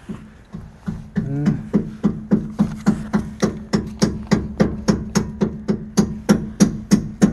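A hammer tapping on metal in a steady, even run of blows, about three a second, starting about a second in. A steady low hum runs underneath.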